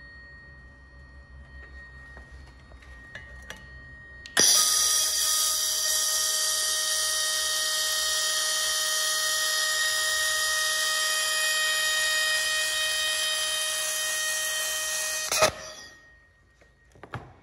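Handheld fiber laser welder firing on a steel corner joint for about eleven seconds: a loud, steady hiss with a high-pitched whine that starts suddenly about four seconds in and cuts off sharply near the end. A faint steady machine hum runs before it, and a few light clicks follow.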